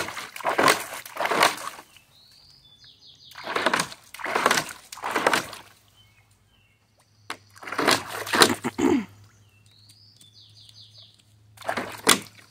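Dog splashing water in a backyard kiddie pool, pawing after a bone on the bottom, in four bursts of sloshing and splashing with short pauses between. A bird chirps in the background twice, in short runs of falling notes.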